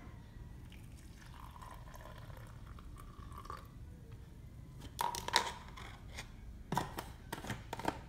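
Water pouring from a vacuum flask into a glass mug for a couple of seconds, followed by several sharp clinks and knocks, the loudest about five seconds in.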